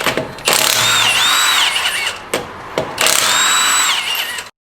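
Power impact wrench run in two bursts, each about a second and a half long, with a whine that rises, holds and falls as it spins the wheel's lug nuts off. There are a couple of clicks between the bursts, and the sound cuts off suddenly near the end.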